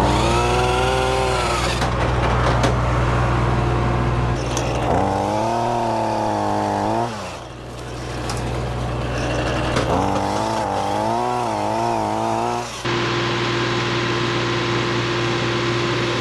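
Tractor-driven PTO wood chipper running, with a steady engine hum under it. Three times the chipper's whine dips in pitch and recovers as branches are fed through and chipped. Near the end the sound changes abruptly to a steadier hum.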